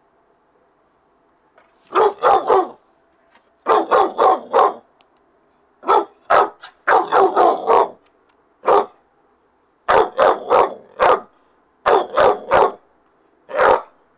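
Young white dog barking loudly in quick bursts of one to five barks, about twenty barks in all, with short pauses between bursts.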